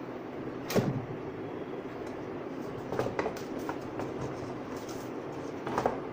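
Handling noises from unboxing a plastic Wi-Fi router and its packaging: a sharp knock about a second in as the router is set down, then lighter clicks and paper rustling around three seconds in and a sharper click near the end. A steady background rumble runs underneath.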